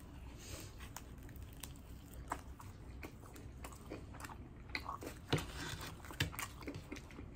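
A person biting into and chewing a folded New York-style pizza slice with a crisp crust: a bite, then chewing with scattered small crunches and mouth clicks, the loudest a little past five seconds in and again about a second later.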